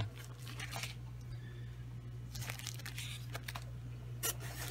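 Plant packaging being handled and crinkled during unpacking, in short scattered rustles and crackles, one louder near the end.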